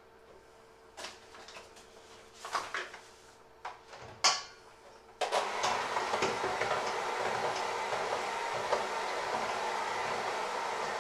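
A spoon clinks and knocks against a steel mixing bowl a few times. Then, about five seconds in, an electric hand mixer with dough hooks switches on abruptly and runs steadily, kneading dough in the bowl.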